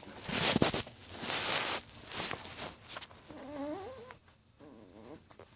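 Yorkshire terrier puppies scrambling over puppy pads and plastic sheeting, with scratchy rustling in bursts. A short wavering puppy whine or play-growl comes about three and a half seconds in.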